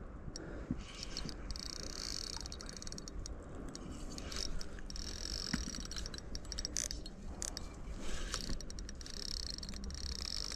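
Spinning reel wound in spells while a hooked carp is played, its gears whirring with small ticking clicks. The drag is set loose so the fish can take line.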